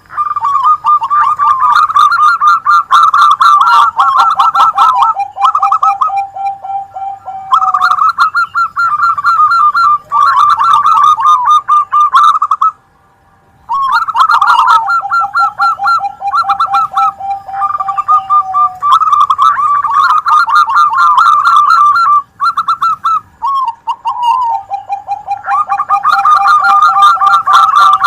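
Zebra doves (perkutut) cooing: several birds overlap in rapid rolling coos. Every ten seconds or so a lower, drawn-out run of quick notes comes in, and there is a break of about a second near the middle.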